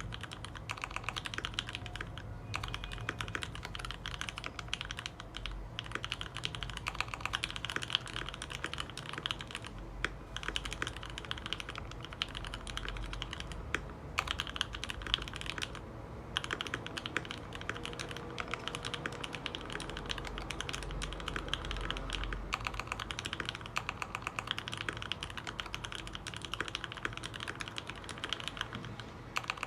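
Continuous fast typing on a custom mechanical keyboard, a Dolphin V3 with lubed Tealios switches in Cherry top housings and 65 g springs. There are brief pauses, the longest just before the middle.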